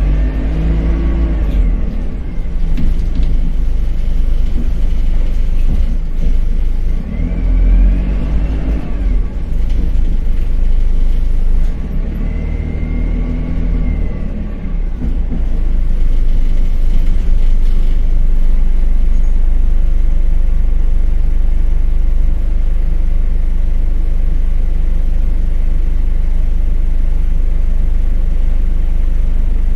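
Dennis Dart single-deck bus under way: the engine and drivetrain pitch rises and falls three times in the first half. From about sixteen seconds in it settles into a steady low rumble.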